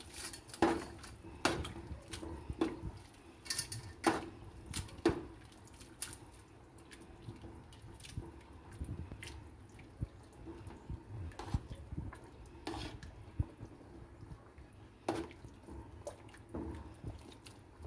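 Metal tongs clinking and scraping against a metal pot while stirring spaghetti in boiling water, with water sloshing. The clinks come irregularly, busiest in the first few seconds.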